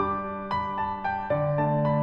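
Gentle background piano music: single notes struck two or three times a second over held bass notes, with the bass moving to a new note just past halfway.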